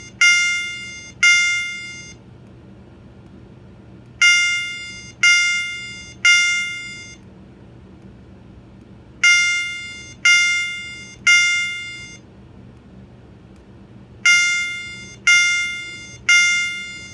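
Gentex GOS-24-15/75WR fire alarm horn/strobe sounding its chime tone, very loud on high volume. Electronic chime strikes come in groups of three about a second apart, each ringing out and fading, with a new group about every five seconds.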